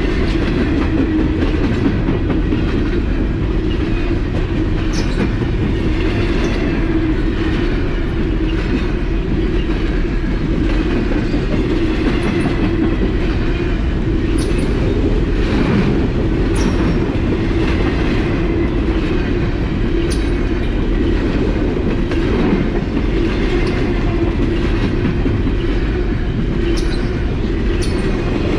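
Empty freight cars of a Norfolk Southern train rolling steadily past, a continuous rumble with the wheels clicking on the rails now and then.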